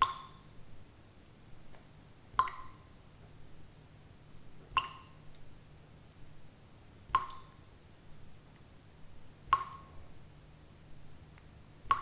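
Water droplets dripping at a steady rhythm, one about every two and a half seconds, each a short, clear plink.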